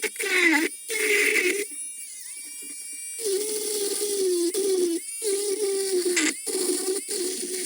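Dremel rotary tool whining as it grinds and brushes rust off a steel penknife, its pitch sagging and recovering as the bit bites. The sound is sped up, with several short dropouts.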